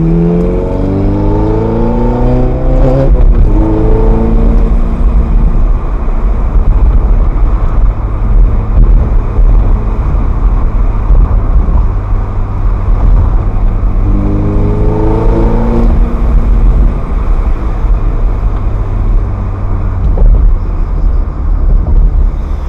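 Ferrari F430's V8 engine accelerating, rising in pitch for about three seconds before dropping at a gear change, then running steadily under heavy road rumble. A second short acceleration rises again about fourteen seconds in.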